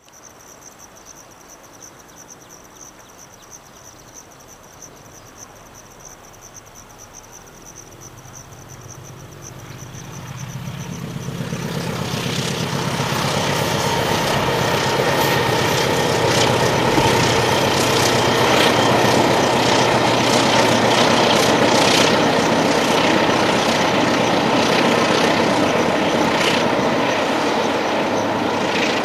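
A steady high insect buzz, then a diesel locomotive hauling a passenger train approaches and crosses a steel trestle bridge. Its engine hum builds from about eight seconds in and is loud by about twelve seconds. Over the hum, the wheels clatter and knock on the rails and the bridge deck.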